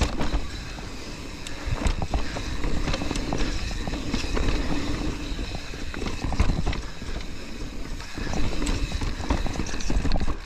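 Mountain bike, a YT Capra, clattering down a rough, rooty and rocky descent: a constant run of irregular knocks and rattles as the tyres and frame take the hits, over a low rumble of wind and ride noise on the microphone.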